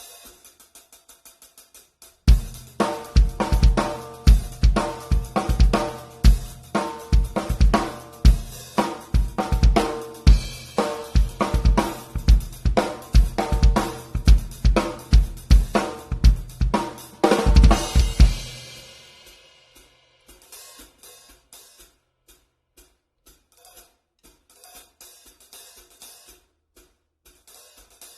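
Drum kit played in a steady groove, led by a 14-inch Meinl Soundcaster Custom hi-hat with kick and snare. Light hi-hat ticks come first; the full groove starts about two seconds in. It ends about eighteen seconds in on a loud hit that rings out, and soft hi-hat ticks follow.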